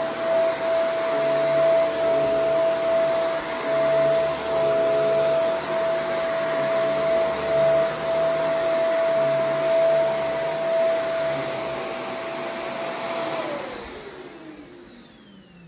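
Shark Vertex AZ2002 corded upright vacuum running on carpet: a steady motor whine over a rushing hiss, swelling and easing as the head is pushed back and forth. About thirteen seconds in, the motor winds down, its whine falling in pitch as the sound dies away.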